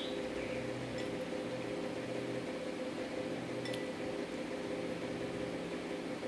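Metal spoon lightly clinking against a ceramic bowl a few times, about a second in and again just before four seconds, over a steady mechanical hum.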